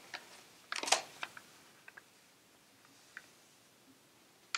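Sheet of copy paper being folded and creased by hand. A short crackle of paper comes about a second in, then a few faint ticks and rustles.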